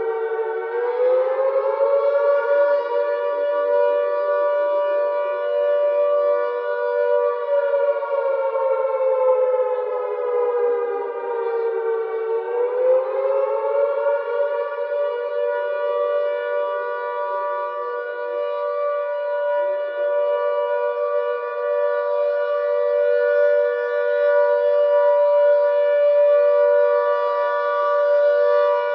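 Air-raid (civil defence) siren wailing, two tones sounding together. Its pitch climbs about a second in, slowly sags, climbs back up again about thirteen seconds in, then holds steady.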